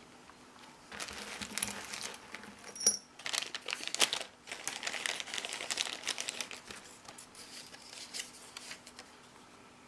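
Packaging crinkling and rustling as a padlock is unwrapped by hand, with a short metallic clink just before three seconds in.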